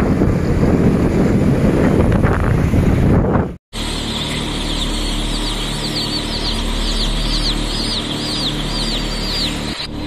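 Wind buffeting the microphone over motorbike and traffic rumble for the first few seconds, then an abrupt cut to many baby chicks peeping: rapid, repeated high chirps over a steady low hum, fading out near the end.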